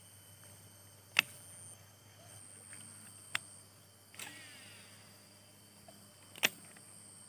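Three sharp clicks about two seconds apart, and a softer click about four seconds in followed by a brief sweeping sound, over a faint steady outdoor background.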